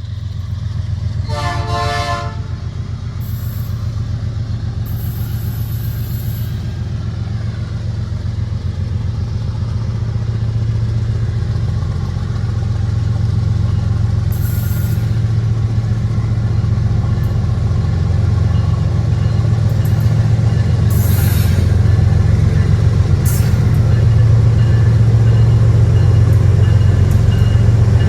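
GE ES43BBi diesel-electric locomotive accelerating hard up a grade, its engine roaring with a deep steady rumble that grows louder as it comes closer. A short horn blast sounds about a second in.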